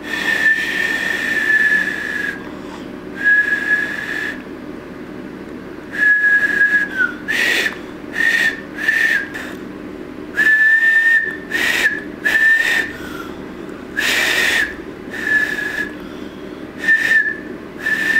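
A two-finger whistle blown by a beginner who has just got it to sound: about a dozen separate high blasts at much the same pitch, some short and some held for about two seconds, with breathy air noise around each.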